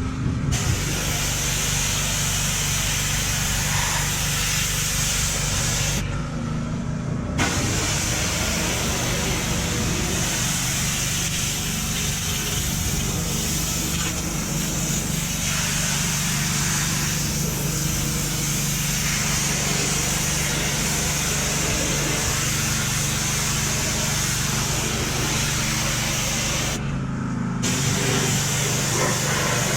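Pressure washer running: a steady motor hum under the hiss of the high-pressure spray. The spray cuts out twice, for about a second some six seconds in and briefly near the end, while the motor keeps running.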